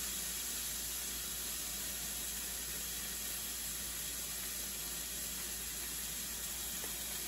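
Steady, even sizzle of food frying in a hot Lodge cast-iron pan, the sign that the pan is up to heat.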